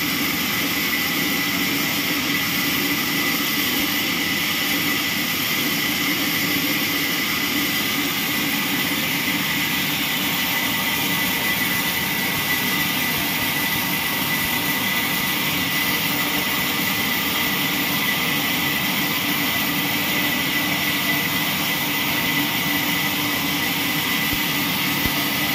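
Horizontal band sawmill sawing through a squared log: a steady, loud hiss and drone of the band blade in the wood and the machine's drive, with a constant high tone over it.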